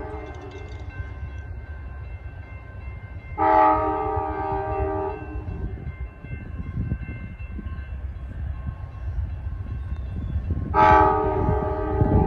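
Amtrak diesel locomotive's multi-chime air horn sounding for a grade crossing as the train approaches. The tail of one blast comes right at the start, then two long blasts come about 3.5 and 11 seconds in, over a low rumble that builds toward the end.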